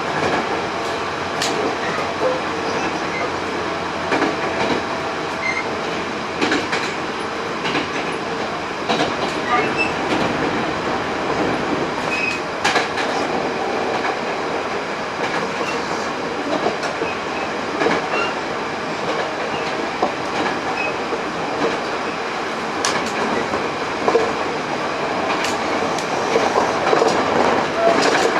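Hankyu 8000 series electric train running at speed, heard inside the passenger car: steady rolling noise with scattered clicks as the wheels pass over rail joints and points.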